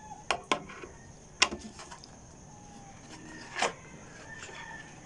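A few sharp clicks and knocks from plastic gimbal parts and packaging being handled on a table: two quick clicks near the start, another about a second and a half in, and a longer knock past three and a half seconds.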